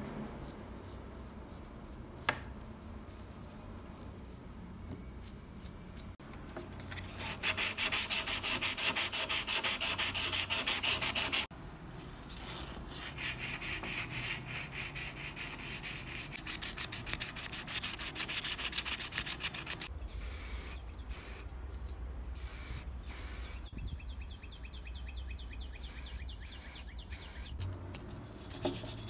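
Folded sandpaper rubbed by hand over the small die-cast body of a model Ford F-150 pickup in quick back-and-forth strokes, after fainter scrubbing at first. The strokes are loudest and fastest in a spell about a quarter of the way in.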